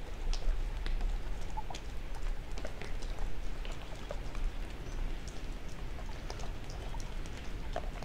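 Outdoor nature ambience: a steady low rumble with scattered faint ticks and clicks.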